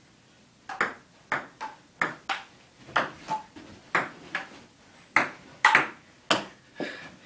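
Table tennis rally: the ball clicking back and forth off the paddles and the table, sharp short clicks about two to three a second.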